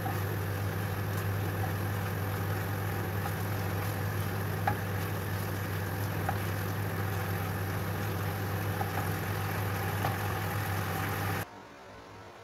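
Thick beef sauce simmering and bubbling in a pan on the stove, over a steady low hum, with a few light clicks of the stirring spoon. It cuts off about eleven seconds in, leaving only faint hiss.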